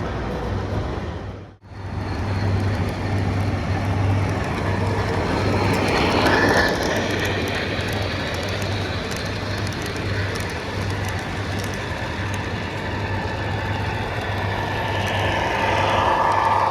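A rail vehicle running along the track, with a steady running noise over a pulsing low engine hum and faint clicking. The sound drops out abruptly for a moment about one and a half seconds in.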